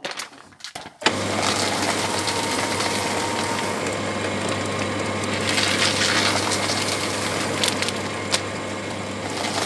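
Electric paper shredder switching on abruptly about a second in and running steadily with a low motor hum, its cutters chewing through junk mail.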